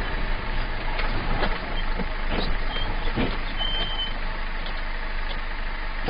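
Steady engine and road noise heard inside the cab of a heavy vehicle on the move, with a few faint knocks in the first few seconds.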